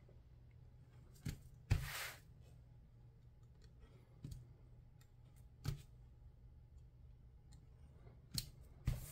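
Yellow snap-off craft knife cutting and picking at thin paper: a few sharp, scattered clicks and one short scrape about two seconds in, over a faint low hum.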